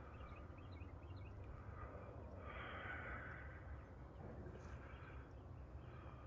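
Faint outdoor trail ambience: a steady low rumble, a breathy rush around the middle, and a few faint high chirps in the first second or so.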